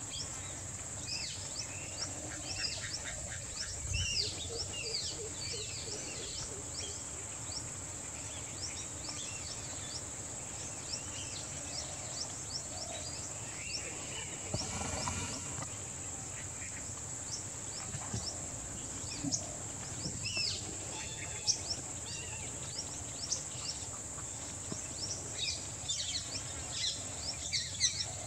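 Wild outdoor ambience: a steady high-pitched insect drone with many short chirps of small birds scattered throughout, and one longer call about halfway through.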